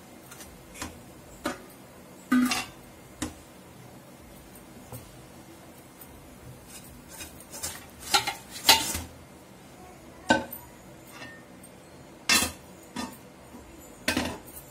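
A steel spatula scraping and tapping in a nonstick pan, then a pan, a steel plate and a lid clattering as they are handled. The sound is a scattering of separate sharp knocks and clinks, with a cluster of them a little past the middle and more near the end.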